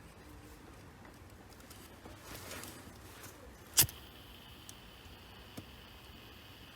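Faint handling noise of wiring and small tools, with one sharp click about four seconds in and a small tick later.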